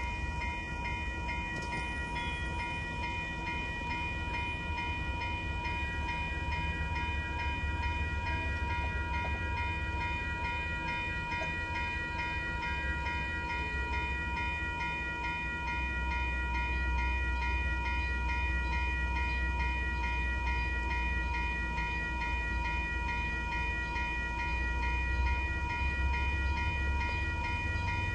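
Railroad grade-crossing warning bell ringing continuously in rapid, even dings, over the low rumble of an MBTA commuter train creeping slowly toward the crossing. The train's rumble grows louder about halfway through.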